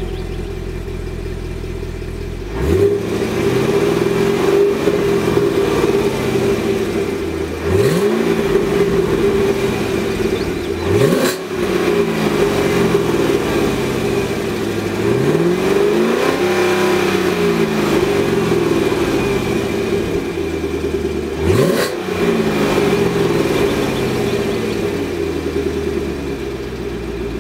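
2016 Chevrolet Camaro SS's 6.2 L LT1 V8 revved while standing still through a Baq cat-back exhaust with its valves closed. It idles at first, then is blipped five times, the revs climbing sharply and falling slowly each time, before settling back toward idle.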